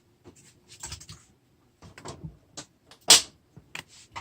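Plastic Hot Wheels toy trucks being handled and set onto plastic track: a scatter of light clicks and taps, the loudest about three seconds in.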